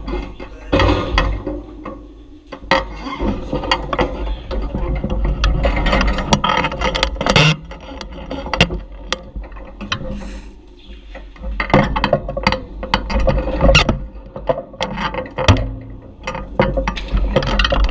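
Beach cruiser rolling over concrete, its frame and handlebar-mounted camera giving irregular clicks, knocks and rattles over a steady low rumble.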